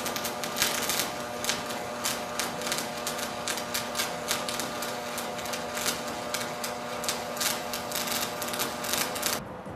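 Stick (shielded metal arc) welding: the electrode's arc crackles and pops steadily and irregularly over a steady hum. The arc cuts off suddenly near the end.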